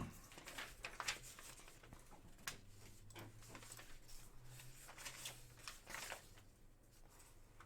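Faint handling noise from trading cards and their packaging on a table: scattered light clicks and rustles over a low steady hum.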